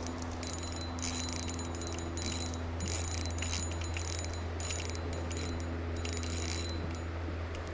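Fishing reel drag clicking in repeated short bursts as a hooked steelhead pulls line, over a steady low rumble.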